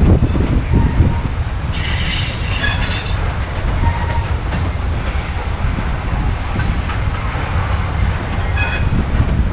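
Freight cars of a long train rolling past close by: a steady, heavy rumble of wheels on rail. High-pitched metallic squeals break in for about a second, about two seconds in and again near the end, typical of wheel flanges squealing.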